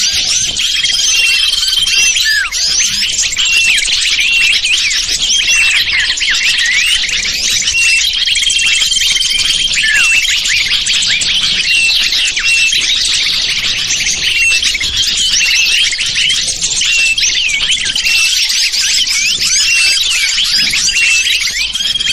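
Bird-lure recording of many small birds chirping and twittering at once in a dense, unbroken chorus, made to call wild small birds in. A short level whistle recurs about every eight seconds, as the recording loops.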